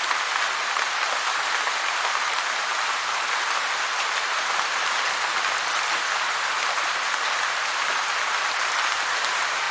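Heavy rain falling in a steady, dense hiss with fine crackle of drops throughout.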